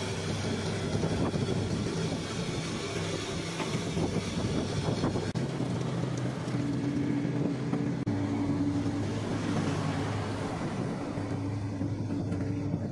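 Shanding SD18U mini excavator's Perkins 403D-11 three-cylinder diesel engine running steadily while digging, its pitch shifting about five seconds in and again about eight seconds in.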